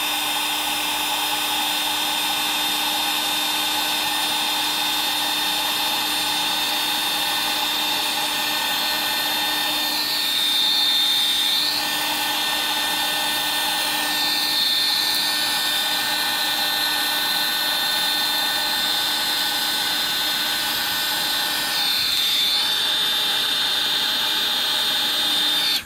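Battery-powered heat gun running steadily with its fan blowing and a constant high whine, heat-shrinking tubing over crimped wire terminals. The sound wavers briefly three times and cuts off abruptly at the very end when the gun is switched off.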